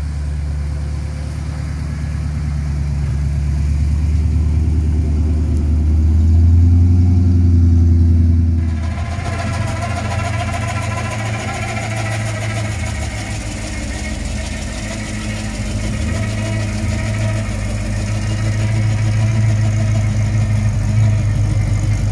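Car engine idling with a low, steady rumble that swells and rises slightly in pitch around six to eight seconds in, then turns brighter and busier from about nine seconds.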